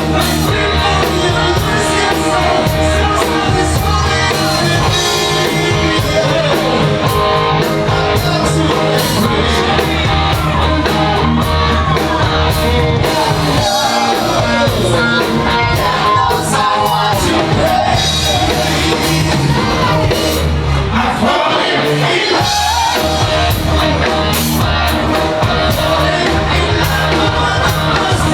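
Live rock band playing with a singer over a steady low end. The bass drops out for about a second roughly three quarters of the way through, then comes back in.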